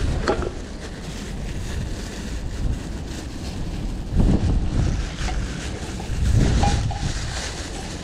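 Wind buffeting the microphone in gusts, strongest about four seconds in and again around six and a half seconds. Over it come short crackles of a plastic bag being handled as trash is gathered into it.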